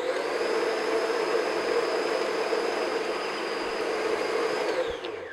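Electric stand mixer running steadily, its beater whipping vanilla extract into creamed butter and sugar, then switched off about five seconds in and winding down.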